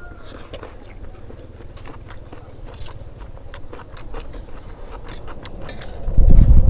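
Two men eating fast: chewing and crunching fried rice and raw cucumber, with many short clicks of spoons on metal plates. About six seconds in, a much louder low rumble starts.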